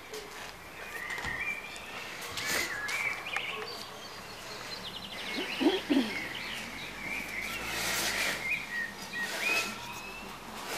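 Birds chirping and singing outdoors, with a few short rustles and knocks from people moving about and handling things on a mat.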